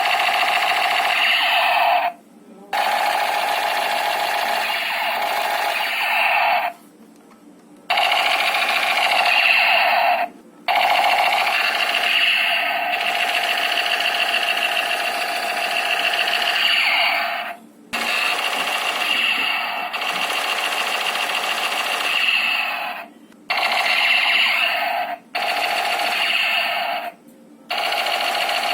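Toy shotgun's electronic sound effect from its small speaker: a loud, warbling electronic buzz like a ringing alarm. It is set off over and over, each run lasting from under two to about six seconds, with short breaks between them.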